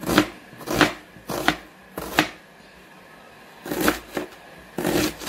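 Kitchen knife chopping a red onion on a cutting board: separate strokes about every 0.7 s, a pause of about a second and a half in the middle, then a few quicker strokes near the end.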